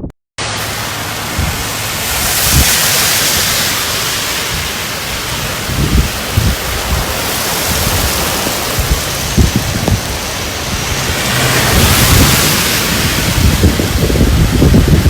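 Heavy rain from Cyclone Shaheen pouring down, a dense steady hiss that swells twice, with scattered low thumps.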